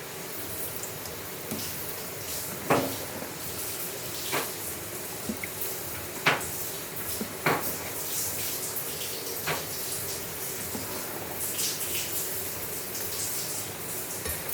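Water running and splashing as something is washed, with about half a dozen sharp clinks and knocks of a pot or dish.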